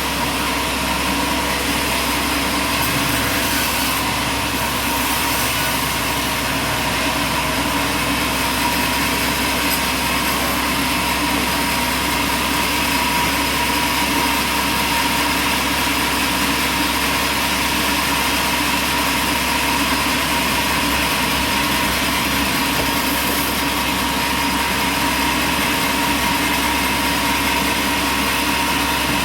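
Machinery running steadily: a constant mechanical drone with several steady whining tones and no pauses or impacts.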